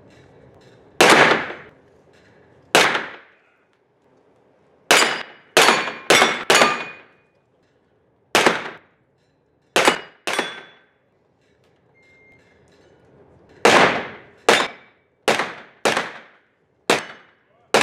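Gunshots in an indoor range hall, fired singly and in quick strings of two to four shots, about sixteen in all. Each shot is followed by a short echo off the hall.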